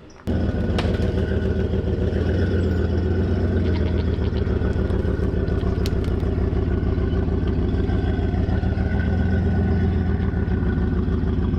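A vehicle engine running steadily at idle, starting abruptly about a third of a second in, with a few faint clicks over it.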